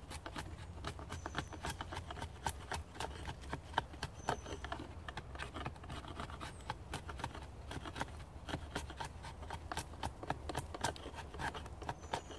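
Knife shaving wood from the belly of a green yew bow stave while tillering it: quick, irregular cutting strokes, several a second.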